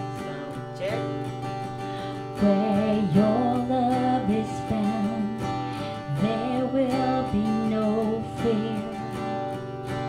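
Acoustic guitar strummed with a woman's voice singing into a microphone, both amplified through an Alto Professional Trouper portable PA speaker. The voice comes in about two and a half seconds in and sings in phrases until near the end.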